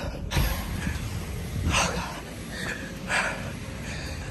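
A person breathing hard while hurrying on foot: two loud breaths about a second and a half apart, over a low rumble of wind and handling on the phone's microphone.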